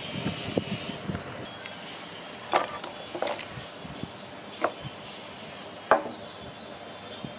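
Soup ingredients tipped off a ceramic plate into a pot of water: a few sharp clinks and knocks of the plate and pot, the loudest about six seconds in.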